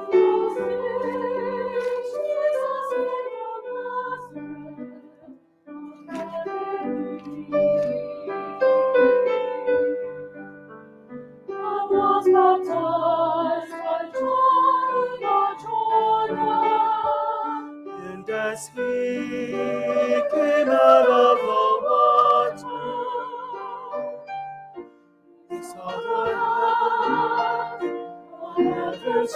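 Church choir singing an anthem in parts with piano accompaniment, in long sung phrases with vibrato and brief pauses between them.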